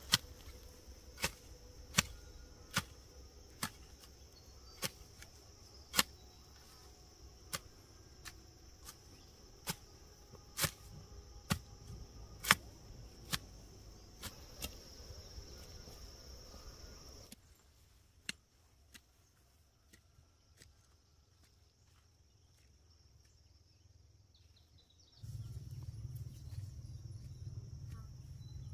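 Insects droning steadily at a high pitch, with sharp knocks or clicks every second or so. About two-thirds of the way in, the drone and knocks drop away abruptly, and near the end a low rumble comes in.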